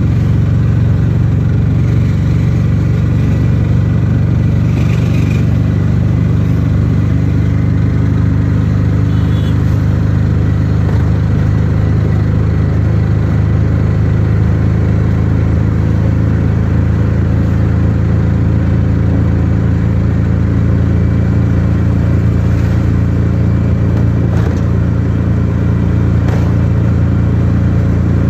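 Auto-rickshaw engine running steadily while driving at a constant speed, heard from on board, a low drone with no change in level.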